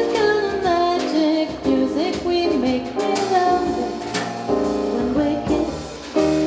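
A woman singing a melody into a microphone over a small live band of electric stage keyboard and drum kit, with cymbal and drum strokes now and then.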